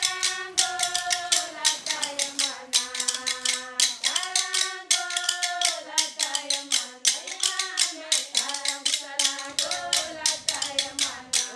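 Women's voices singing a melody together over fast, steady percussive clicks.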